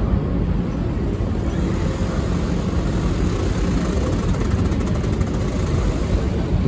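Steady low rumble of the Salvia Maru ferry's engines and machinery, heard from on deck while the ship lies at the quay.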